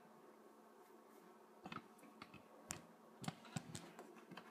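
Near silence, broken from about a second and a half in by a scattering of faint, sharp clicks.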